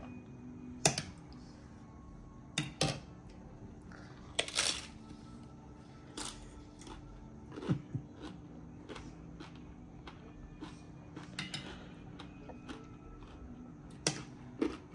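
Scattered sharp knocks and clinks of dishes and utensils in a kitchen, about a dozen at irregular intervals, over faint background music.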